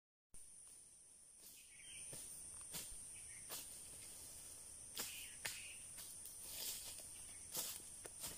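Footsteps on dry fallen leaves, irregular crackling steps about once a second, with rustling as a stick is picked up, over a steady high-pitched insect drone.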